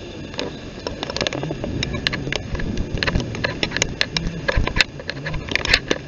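Handling noise from a hand-held phone being swung about: irregular sharp clicks and knocks on the microphone over a steady hiss, with a voice murmuring briefly.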